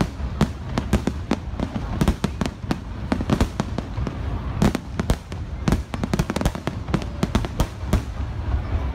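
Aerial fireworks display: rapid, irregular bangs of shells bursting in the sky, several a second, growing fewer near the end.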